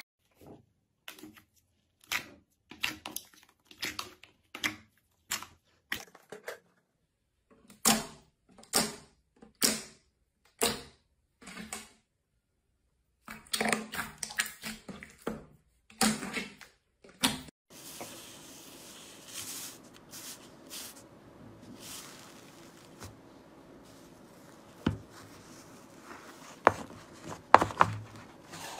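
Hands pressing and poking glossy slime, making a run of short sticky clicks and pops, with a second of silence about halfway through. Later a faint steady hiss carries fewer, scattered clicks as a softer slime is stretched.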